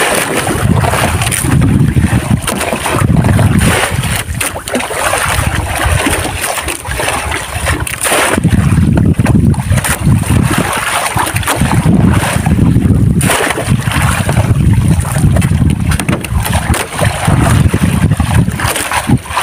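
Sea water splashing and sloshing at the side of a small outrigger fishing boat as a long-handled dip net is swept through it, over loud, uneven low noise that swells and fades every second or two.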